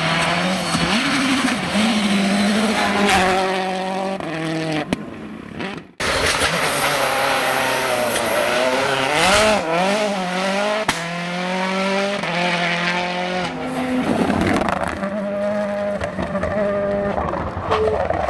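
Rally cars at full throttle on a gravel stage, engines revving and changing pitch in steps as they shift gears while passing by. A hard cut about six seconds in breaks the sound off and another car picks up.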